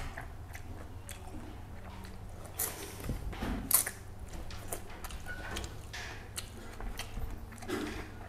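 Close-up eating sounds of a man eating fish and rice with his fingers: chewing, lip smacks and small wet clicks, with one louder smack about three and a half seconds in.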